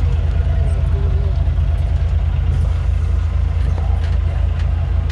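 Vehicle engine idling: a steady low rumble with no change in level.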